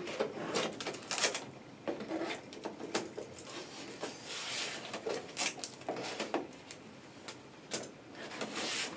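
Scissors snipping and scraping through a small cardboard box, with the cardboard crackling and rustling as it is cut and pried open by hand near the end.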